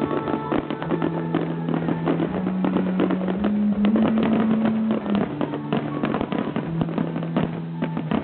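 Starmine fireworks barrage: a dense, irregular run of shell bursts and crackles, with a song playing over the venue's loudspeakers underneath.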